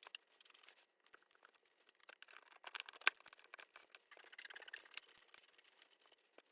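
Faint scattered clicks and light ticks of hand tools and screws as an engine's oil filter cover screws are put in and snugged down, with one sharper click about three seconds in.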